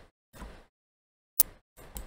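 Computer mouse and keyboard being worked at a desk: two short bursts of scraping noise, with one sharp click about one and a half seconds in.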